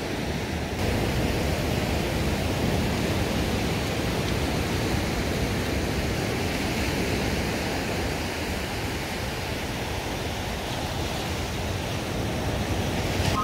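Ocean surf washing over rocks, a steady rushing noise that grows louder about a second in.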